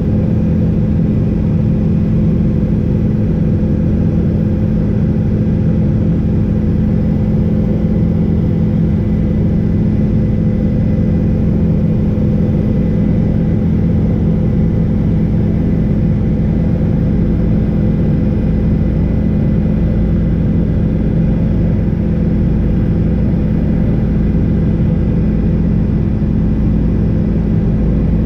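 Helicopter in cruising flight heard from inside the cabin: a loud, steady drone of engine and rotor, with a deep rumble under a few steady hum tones.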